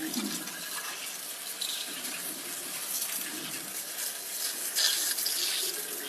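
Steady rush of running or spraying water, a little louder for about a second near the end.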